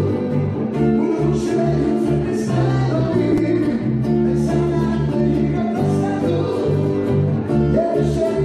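Live band playing: strummed acoustic-electric guitar over a bass guitar line, with a man singing.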